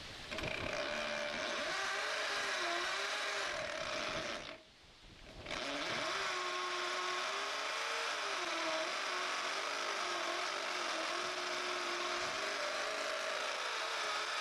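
Corded electric hammer drill boring into concrete, its motor pitch wavering as it works under load. About four seconds in it stops for a second, then starts again.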